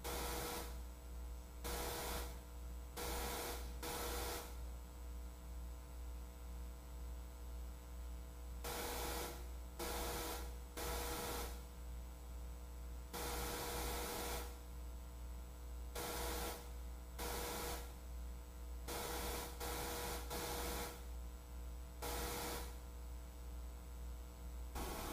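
Steady low electrical mains hum with a few faint steady tones above it, and faint hiss that swells and fades irregularly every second or two.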